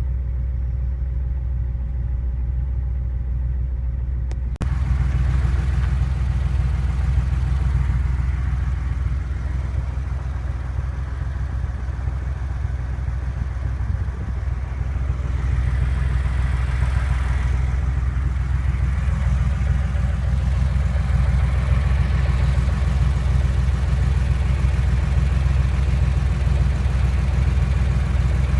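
Warmed-up Porsche engine running steadily with a tapping sound, which the owner takes for engine knock. The sound turns abruptly louder and fuller about four and a half seconds in.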